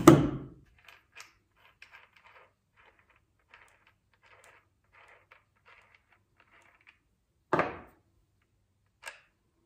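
Handling clatter from fitting a grinder's wheel guard: a sharp knock at the start and another about seven and a half seconds in, with light clicking and scraping between.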